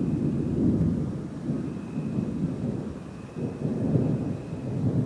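Rolling thunder: a low rumble that swells and eases several times during a rainstorm.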